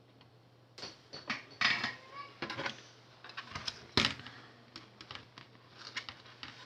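Irregular clicks, knocks and rattles of hard objects being handled on a workbench, with the loudest knock about four seconds in.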